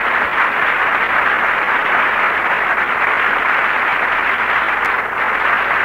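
Studio audience applauding steadily, on an old radio broadcast recording with its treble cut off.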